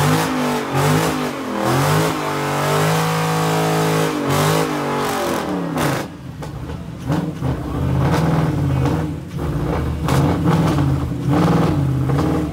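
Dodge Charger doing a burnout: the engine is revved hard, climbs and holds high for a few seconds, then is blipped up and down about once a second while the rear tyres spin in their own smoke.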